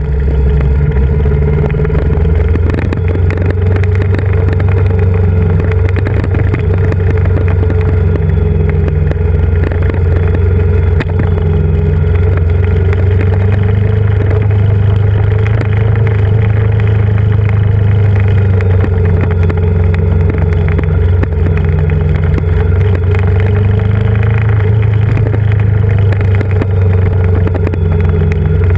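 Yamaha Vmax 1700's V4 engine running steadily while riding, heard from a camera on the moving motorcycle, with wind rushing over the microphone.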